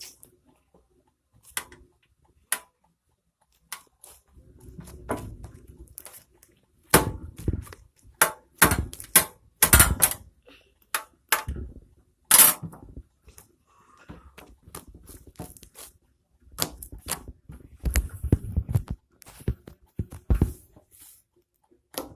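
Hands kneading and stretching fluffy slime and cloud slime together, making irregular squishes and sharp popping clicks in two busy spells.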